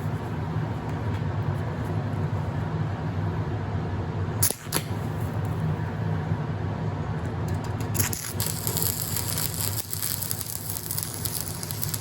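Stick arc welding with a 1/8-inch rod: a steady crackling, hissing arc over a low hum. It breaks off briefly about four and a half seconds in, then strikes again, with a sharper high crackle in the last few seconds.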